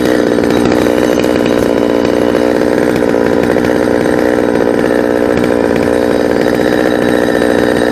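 Chainsaw engine running at steady high speed, its pitch holding even throughout.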